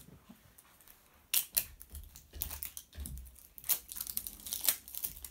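Wrapping being peeled and crinkled off a toy surprise ball in the hands, a run of irregular small clicks and crackles.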